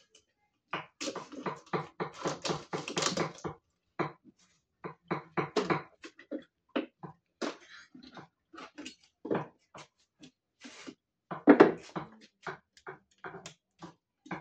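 A knife cutting and cracking a shellfish's hard shell on a wooden cutting board. It starts with a quick run of crunching strokes, then goes on as irregular cracks and knocks, with one louder knock a little past the middle.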